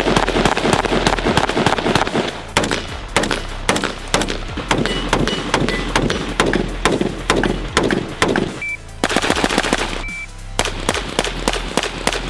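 Rapid semi-automatic rifle fire from AR-15-style carbines: strings of several shots a second with two short pauses, over background music with a steady bass.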